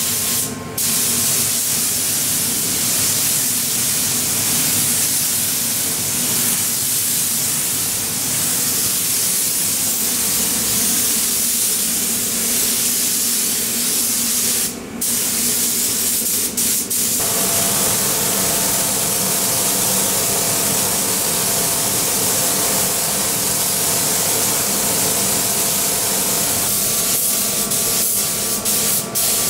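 Compressed-air paint spray gun hissing steadily as a car's body panels are sprayed, stopping briefly a few times, over a steady low hum.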